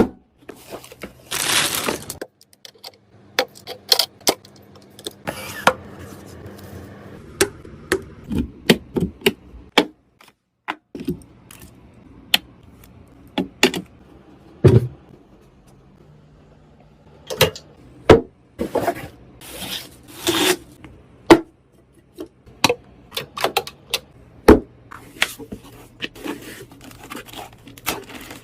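Handling noises of computer parts being fitted: irregular clicks, knocks and scrapes of plastic and metal, with a short rustle like packaging about a second in.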